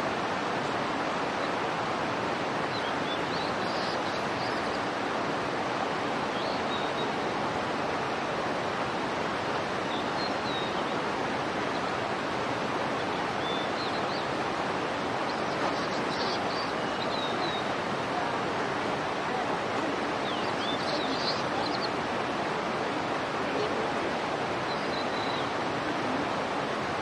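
Steady rushing of flowing water, like a nearby stream, with faint short high chirps every few seconds.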